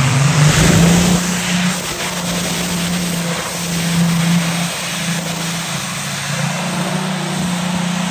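Modified pulling tractor running flat out down the pull track, a loud, steady engine note that rises slightly in pitch about half a second in and then holds.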